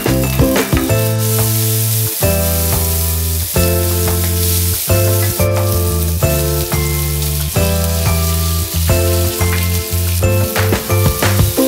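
Background music with short repeated notes and a steady bass line, over bean sprouts, peppers and carrots sizzling in a hot wok as they are stirred.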